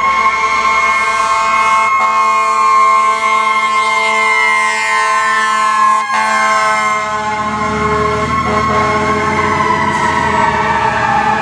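Fire truck sirens, several sounding at once: some tones hold steady while others sweep up and down in pitch, and one winds down in pitch near the end. A low truck rumble joins partway through.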